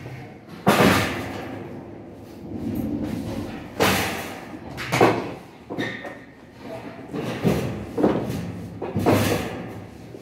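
Several knocks and thumps, about six, loud and sudden, from belongings and furniture being handled and set down while a room is packed up.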